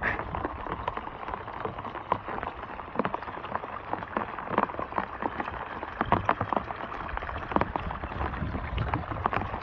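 Rain falling on wet ground: a steady patter with irregular sharper taps scattered through it.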